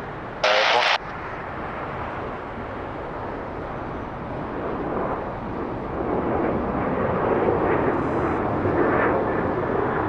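Jet airliner engine noise, a broad steady rush that swells about halfway through as the aircraft comes closer. A brief burst of radio static comes near the start.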